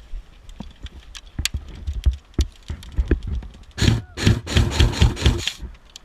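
Footsteps and rustling as a player moves through brush, with irregular knocks and thuds, then a louder scraping rustle for about two seconds near the end.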